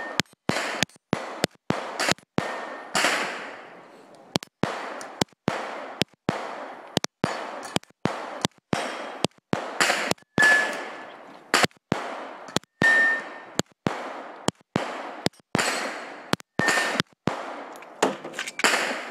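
Pistol fired in a rapid, uneven string, roughly two shots a second with brief pauses, each shot trailing off in an echo. After several shots a steel target rings with a short clear ping.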